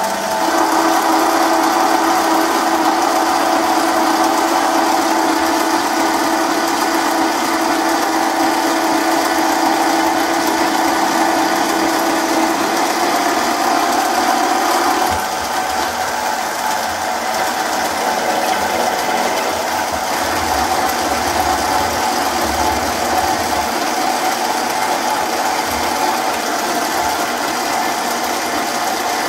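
MicroLux 7x16 mini lathe running under power feed as a cutting tool turns threads off a steel workpiece, the first passes rough as the tool fights against the threads. A steady whine runs through the first half and stops about halfway, after which the sound drops a little.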